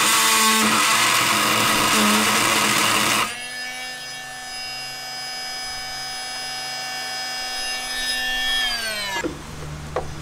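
Oscillating multi-tool cutting at a rivet in the van's underbody panel: a harsh grinding buzz for about three seconds, then the tool runs unloaded with a steady whine that winds down as it is switched off near the end.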